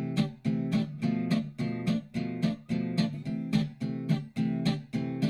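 Background music: a strummed acoustic guitar playing chords in a steady rhythm, about three strums a second.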